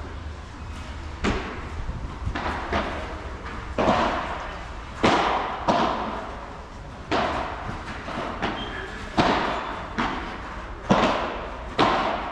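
Padel rally: the ball struck back and forth with solid padel rackets and bouncing on the court, a dozen or so sharp pops about a second apart, each echoing briefly in the covered hall.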